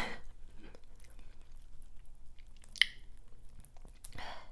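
Close-miked chewing of seafood, wet and soft, with scattered small clicks and one sharp crackle nearly three seconds in.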